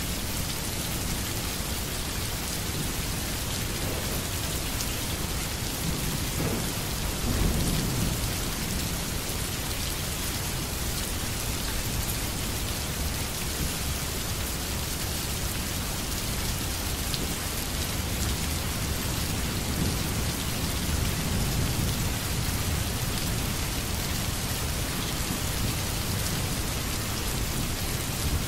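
Steady rain, an even hiss, with low rumbles swelling about seven seconds in and again around twenty seconds.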